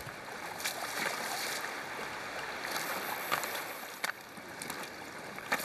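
River current rushing steadily, with a few sharp clicks and splashes scattered through it as a hooked fish thrashes at the surface.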